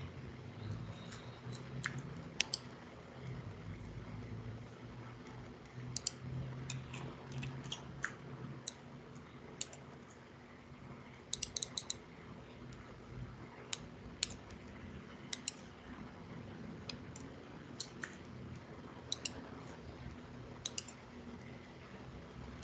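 Irregular clicks from someone working at a computer, some single and some in quick runs of three or four, over a faint low steady hum.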